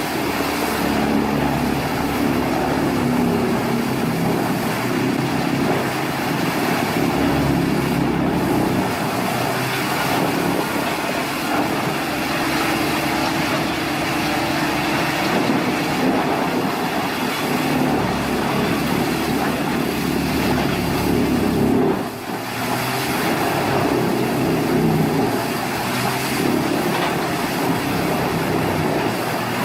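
Heavy tree-harvesting machinery running steadily, an engine with mechanical noise over it, briefly dropping in level about 22 seconds in.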